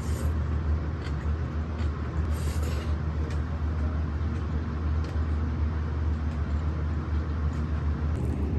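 A steady low rumbling noise, like a running fan or motor, with brief soft hisses near the start and about two and a half seconds in.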